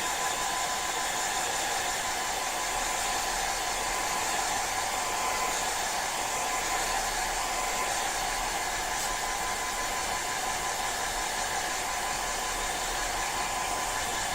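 Hair dryer running steadily, a blowing hiss with a high whine, drying freshly applied nail polish; it starts winding down as it is switched off at the very end.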